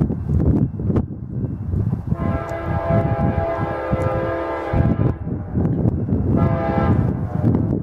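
Horn of an approaching VIA Rail train: one long blast of about two and a half seconds, then a short one about a second and a half later. A steady low rumble runs underneath.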